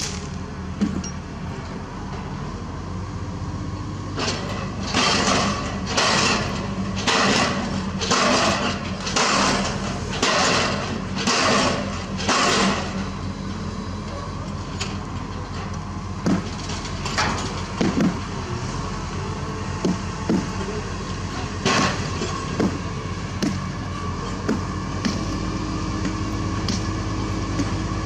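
Diesel pile hammer on a crawler crane rig, firing about eight loud strokes roughly a second apart and then stopping, over the crane's steady engine drone. Scattered short metallic knocks follow.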